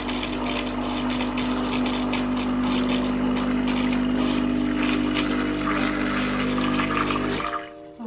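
HiBREW H10A espresso machine's pump running with a steady hum while it dispenses hot water, with a hiss over the hum. It cuts off suddenly near the end.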